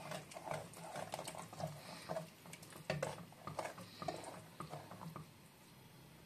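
A wooden spatula stirring a watery spinach-and-spice mixture in a nonstick pot: irregular sloshing with light taps and scrapes against the pot. It dies away near the end.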